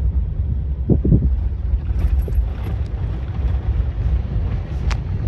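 A vehicle driving, a steady low rumble of engine and road noise, with wind noise on the microphone and a sharp click near the end.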